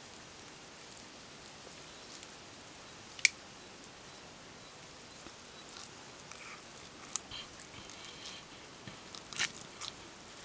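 Handling of a bamboo cooking tube and a steel plate while cooked chicken is picked out of the tube by hand: one sharp tap about three seconds in, then a few lighter clicks and scrapes near the end, over a faint steady hiss.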